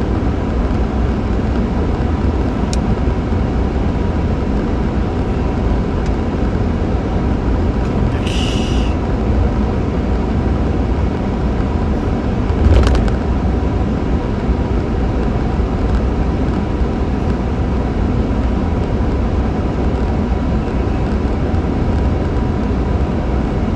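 Jaguar V12 car cruising at highway speed, with a steady low engine and road rumble. A short hiss comes about eight seconds in, and a brief thump near thirteen seconds.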